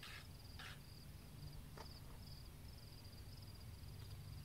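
Insects chirping in a steady, rapidly pulsing high trill over a low wind rumble on the microphone, with a couple of brief faint hisses near the start.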